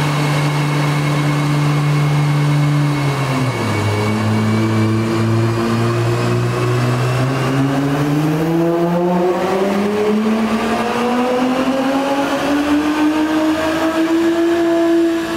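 Infiniti Q50 engine with full bolt-ons and its downpipes removed, pulling under load on a chassis dyno. It holds steady revs, drops slightly about three seconds in, then climbs in pitch steadily for most of the rest as it revs out.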